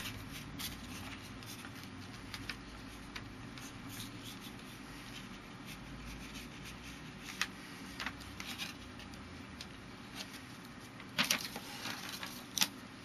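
A sheet of paper being folded and creased by hand on a tabletop into a paper airplane: scattered crinkles and small taps, with a louder burst of rustling about eleven seconds in and a sharp crackle near the end.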